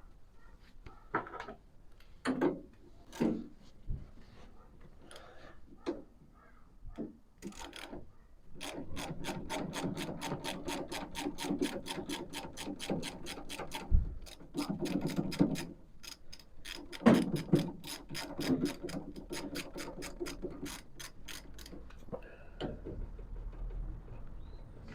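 Ratchet wrench clicking as a bolt on the dune buggy's steering damper is undone, with a long run of even clicks in quick succession. A few scattered knocks come first, and there is a thud about halfway through.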